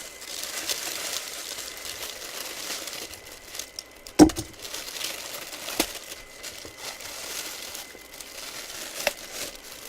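Plastic bag crinkling and rustling as a full-size football helmet is worked out of it, with a sharp knock about four seconds in and a couple of lighter clicks later.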